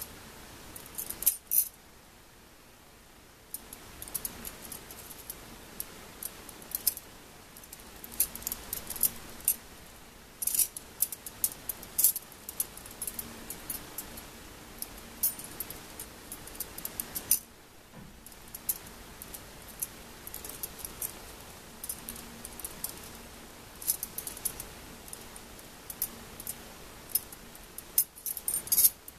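Metal wire puzzle pieces clinking and jangling against one another as they are twisted and slid apart, with many small irregular metallic clicks. There are two brief lulls, about two seconds in and halfway through.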